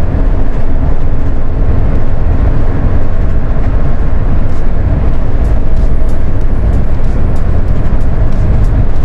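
Mitsubishi Fuso Rosa minibus driving at a steady cruise, heard from the driver's seat: a loud, steady low rumble of engine and road noise.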